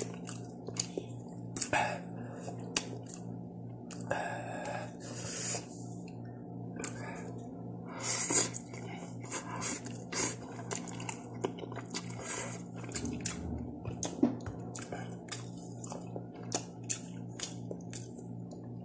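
A person chewing spicy instant noodles close to the microphone: a steady run of small wet clicks and smacks, over a steady low hum.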